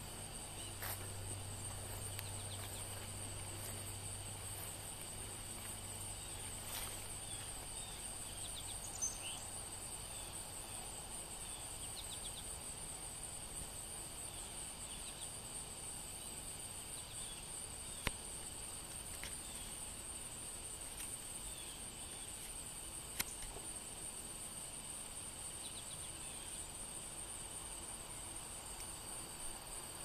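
Steady high-pitched chorus of crickets, with scattered short bird chirps and a few sharp clicks, the loudest about two-thirds of the way through. A low hum fades out in the first third.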